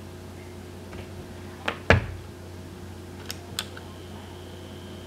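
Small electric mini heater set down on a table with two knocks about two seconds in, then two light clicks, after which the heater starts running with a steady high-pitched whine and fan hiss.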